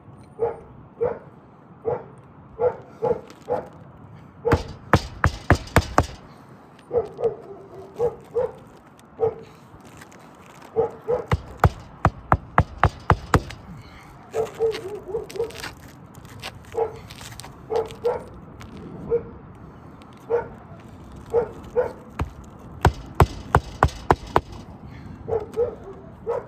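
A dog barking repeatedly, about once a second, while a hammer drives roofing nails into asphalt shingles in three quick runs of sharp strikes.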